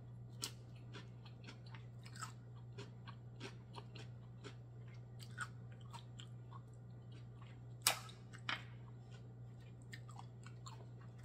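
Close-miked chewing of steamed black mussels: a steady run of small wet mouth clicks, with two louder clicks about eight seconds in.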